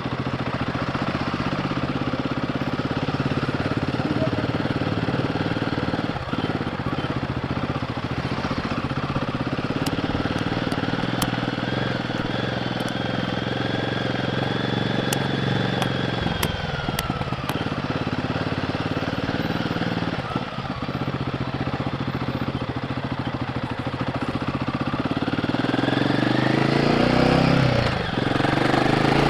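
Royal Enfield Guerrilla 450's 452 cc single-cylinder engine through the stock exhaust, running under way on the road. The revs dip briefly a few times and climb near the end.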